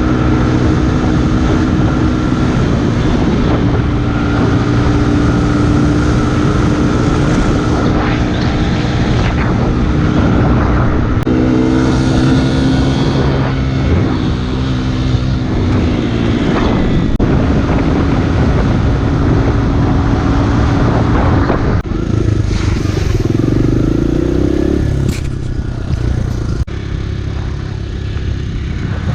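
Kawasaki KLX150 dirt bike's single-cylinder four-stroke engine running under way, with wind and road noise; the engine note eases and gets a little quieter about three-quarters of the way through.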